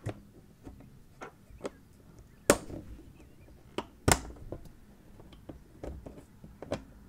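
Watercolour half pans being pressed into a metal paint tin, clicking as they snap into place. Scattered light clicks and taps, with two sharp loud clicks about two and a half and four seconds in.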